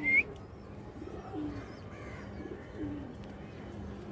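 Domestic pigeons cooing, low falling coos about a second apart, with a loud short rising bird chirp right at the start.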